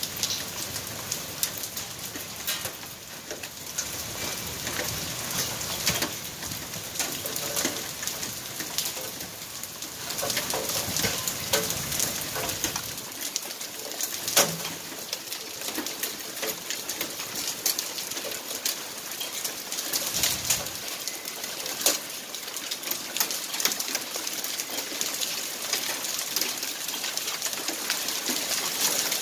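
Rain and small hail falling on concrete: a steady hiss dotted with many sharp ticks of stones and drops striking.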